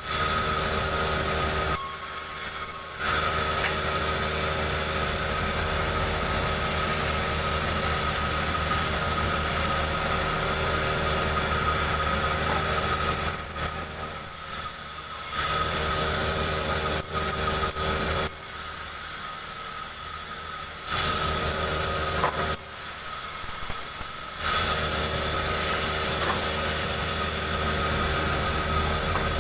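Two-stroke chainsaw running at high revs while ripping a jengkol log lengthwise, its note dropping back four times for a second or two before rising again.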